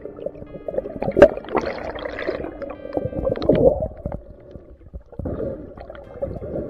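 Underwater water noise, rushing and gurgling around a diver's camera as he swims down, with a sharp click about a second in; background music with held notes runs under it at the start and near the end.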